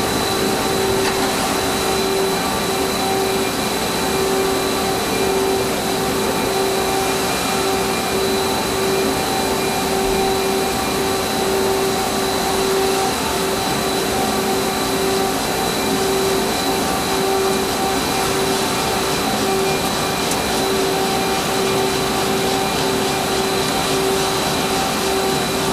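Nakamura-Tome SC-450LL CNC lathe running, turning a long steel shaft held in a steady rest: a steady machine whir with a throbbing hum and a thin high whine.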